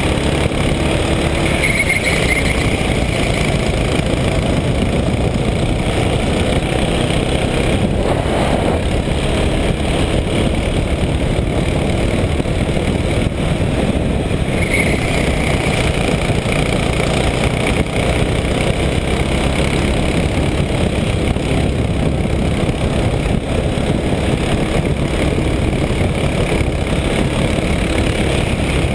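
Racing kart's engine running hard through a lap, heard from the onboard camera as a loud, steady drone with no pauses.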